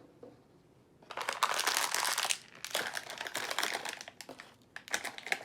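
Crinkly toy packaging being handled and opened by hand: two stretches of dense crackling, each about a second long, then a few scattered crackles near the end.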